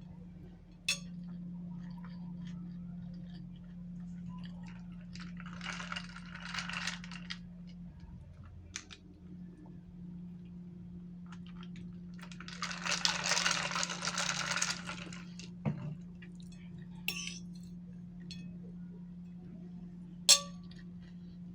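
Eating utensils clinking against a plate or bowl: scattered sharp clinks, the loudest near the end with a short ring. Two longer crackly stretches come a third and two-thirds of the way in, over a steady low hum.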